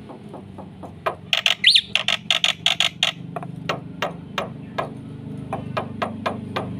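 Black-winged myna (jalak putih) calling: about a second in, a burst of rapid harsh chattering notes with a short rising whistle, followed by a run of sharp clicking notes, several a second.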